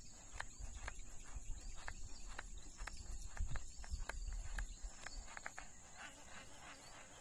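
Steady high-pitched insect drone from the surrounding tropical forest, with irregular sharp clicks scattered through it and a low rumble that dies away about five seconds in.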